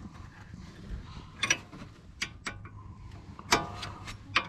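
Steel wrench clinking on a brake caliper bolt as the bolt is threaded in and turned: a few sharp, irregular metallic clicks with a brief ring. The loudest come about a second and a half and three and a half seconds in.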